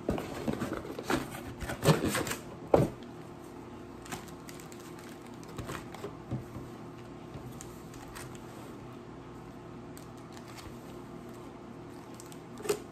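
Pokémon trading cards and packs handled and moved about on a table: a quick run of taps and clicks in the first three seconds, then a few scattered light clicks.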